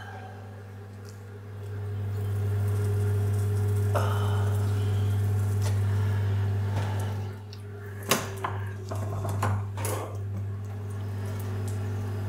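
Electric potter's wheel running with a steady low hum that grows louder about two seconds in and drops back about seven seconds in. A few sharp clicks and knocks come between about eight and ten seconds in.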